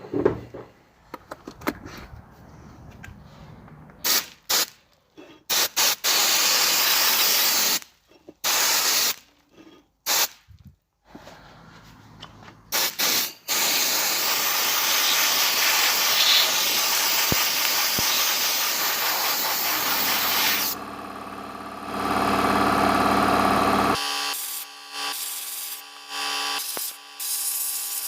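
Pressurised spray hissing, first in short on-off bursts and then in one long steady spray of several seconds. Near the end a different, steadier sound with a hum of several tones takes over.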